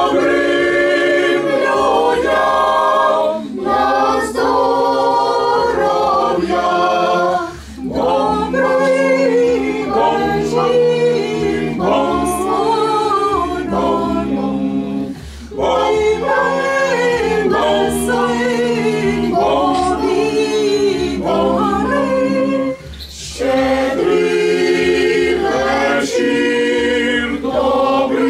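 A small group of carolers singing a Ukrainian Christmas carol (koliadka) a cappella, several voices together, in phrases with short breaks between them.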